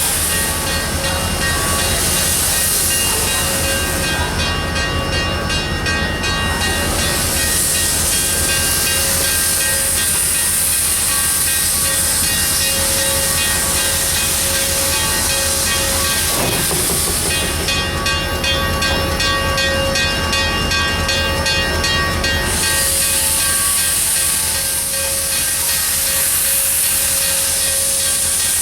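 Steam locomotive No. 7470 letting off steam: a loud, steady hiss that cuts out after about four seconds, returns from about seven to seventeen seconds, and comes back again about twenty-two seconds in. Under it runs a steady low rumble with a few constant tones.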